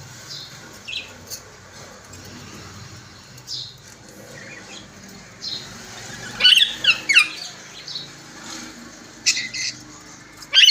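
Pet parrots giving scattered short squawks and chirps, with a quick run of calls about six to seven seconds in.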